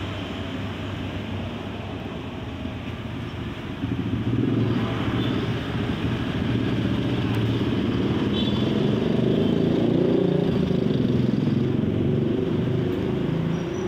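Street traffic with a motorcycle engine running past, getting louder about four seconds in and strongest near ten seconds.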